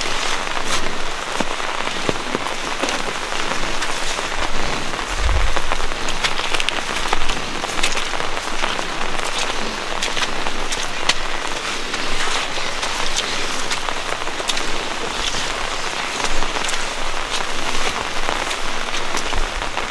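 Steady rain falling on leaves and ground, with many sharp close drop ticks scattered through it.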